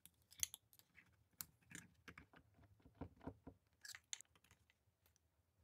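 Faint, scattered small clicks and scrapes of a screwdriver and a carburetor being handled and fitted into a top-handle chainsaw's engine housing, about a dozen light ticks over a few seconds.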